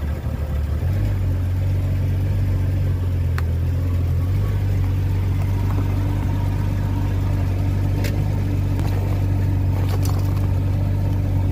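Jeep Comanche pickup's engine running at low, steady speed as the truck creeps forward, its note shifting slightly about a second in and again about four seconds in.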